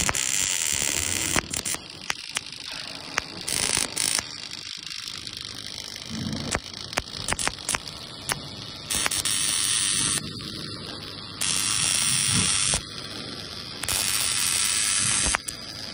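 Automatic MIG welding torch arcing along a corrugated sheet seam: a crackling, spitting arc full of sharp pops, with stretches of louder hiss that start and stop abruptly several times.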